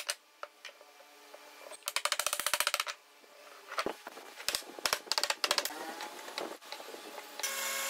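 Hammer knocking on wood joints in a quick, even run for about a second, then scattered knocks and metallic clicks as metal pipe clamps are set around a wooden table-base ring.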